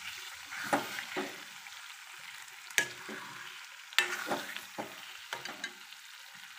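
Metal spoon stirring kadai paneer in a metal kadai, scraping through the gravy and knocking against the pan, with two sharp clinks about three and four seconds in. Under the stirring the simmering gravy sizzles softly and steadily.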